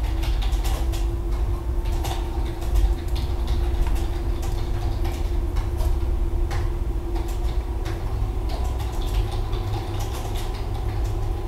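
Steady low hum and rumble with a faint held tone, broken by scattered light clicks.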